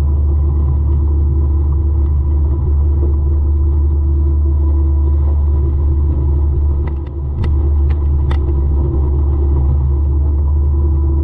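Forestry mulcher running steadily under power, a deep unbroken hum with a steady higher whine over it. A few sharp ticks come about seven to eight seconds in.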